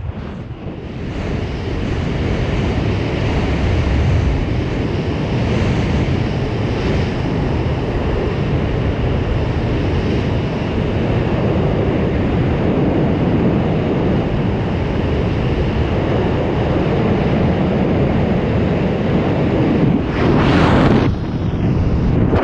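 Freefall wind rushing over the camera's microphone, a loud steady buffeting, with a brief louder surge near the end.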